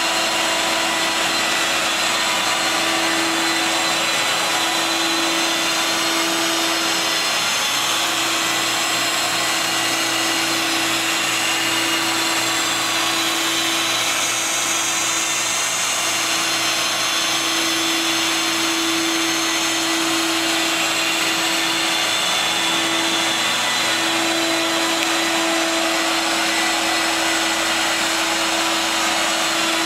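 Portable carpet extraction machine running steadily, with the Rotovac rotary cleaning head being worked over the carpet. There is a loud rushing whir with a steady hum under it that swells and fades slightly.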